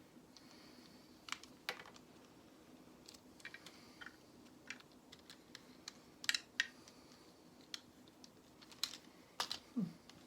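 Small plastic Lego bricks clicking and tapping as they are handled and pressed together: scattered irregular clicks, the loudest a pair about six seconds in and a few near the end.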